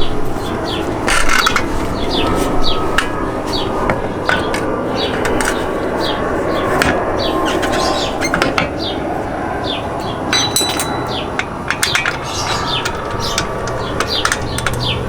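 Small birds chirping over and over in short, falling chirps against steady background noise. A few sharp metal clinks, from tools or parts being handled, come about a second in and again in a quick cluster about two-thirds of the way through.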